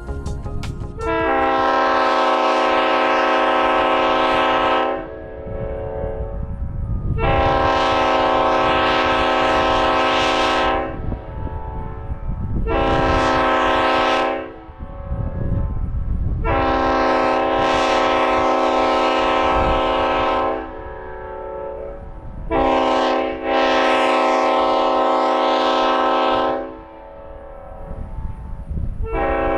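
A 1953 Leslie S5T five-chime air horn from a Chicago & North Western locomotive, blown in a series of blasts. Most last about four seconds, with a short one near the middle and a very short toot just before the last long one. A full steady chord sounds each time, and a new blast starts at the very end. A low rumble sits between the blasts.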